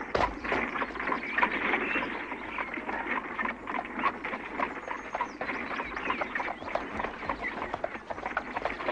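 A thump just after the start, then a horse-drawn cart on a dirt road: hooves and rattling wheels clicking irregularly, with birds chirping.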